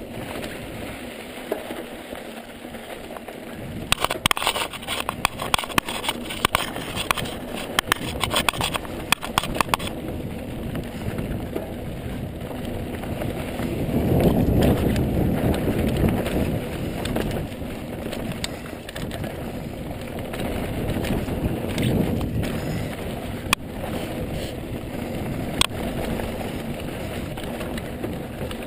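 Ibis mountain bike rolling fast down a dirt singletrack: tyres crunching over dirt and rock, with wind on the microphone. A burst of rapid rattling clicks comes from about 4 to 10 seconds in, and the rolling noise swells to its loudest about halfway through.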